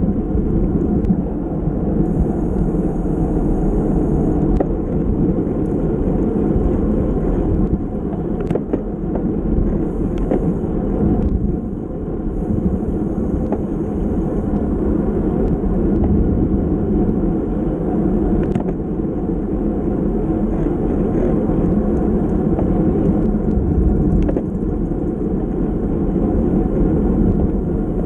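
Wind buffeting a bike-mounted action camera's microphone, with a steady rumble of tyres on the road as the bicycle is ridden at race speed. A few sharp clicks come through.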